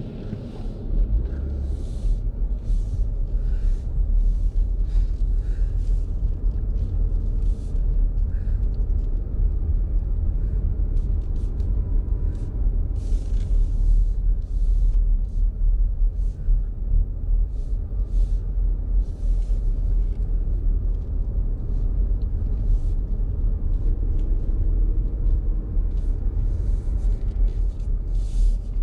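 Car driving slowly, heard from inside the cabin: a steady low rumble of engine and tyres, with frequent short ticks and crackles on top.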